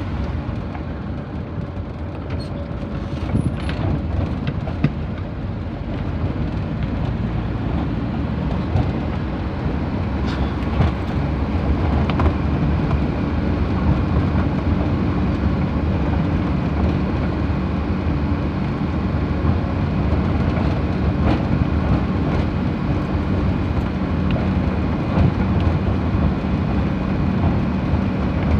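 Engine and road noise heard from inside the cab of a small vehicle being driven along. The sound grows gradually louder over the first several seconds and then holds steady.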